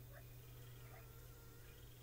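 Near silence: a steady low electrical hum, with a few faint short chirps.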